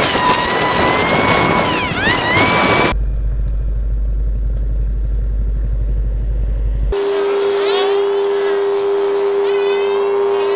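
Motorcycle riding noise: the engine and road and wind rumble on the bike-mounted camera. In the first three seconds a pitch-gliding voice or music lies over it, and from about seven seconds a steady tone.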